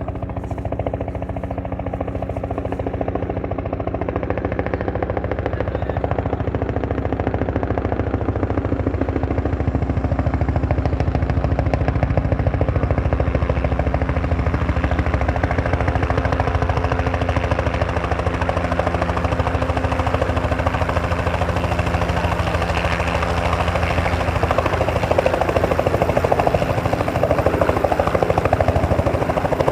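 Helicopter approaching, its rotor blades chopping in a rapid, steady beat that grows louder.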